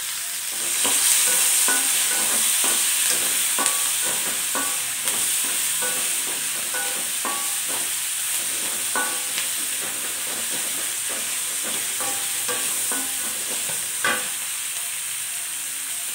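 Onions and tomato frying in oil in a metal kadai with a steady sizzle, while a flat metal spatula stirs and scrapes through them, clinking against the pan many times, one clink louder near the end.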